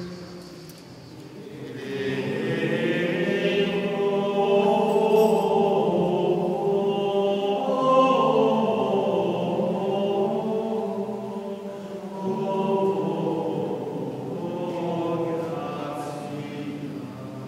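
Gregorian chant in Latin sung by men's voices, the Premonstratensian canons at Mass, inside a stone Romanesque abbey church. It enters about two seconds in, on long held notes that swell and ease.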